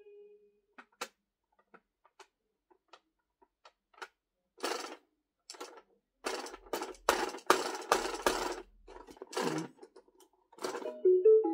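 Scattered clicks, then a run of short rustling scrapes of toy packaging being handled; near the end an electronic toy tune starts playing.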